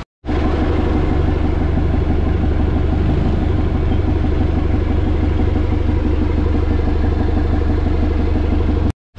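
Vehicle engines idling in stopped traffic: a steady low rumble with a constant hum above it.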